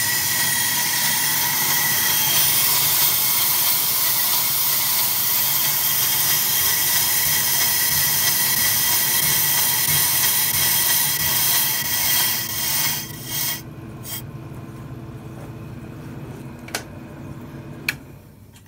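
AMMCO brake lathe's cutting bits taking a rough cut across a large spinning brake rotor: a steady scraping hiss with a high ringing tone and no chatter, because the tooling is damping the vibration. The cutting stops about 13 seconds in, leaving the lathe running more quietly, and two sharp clicks come near the end.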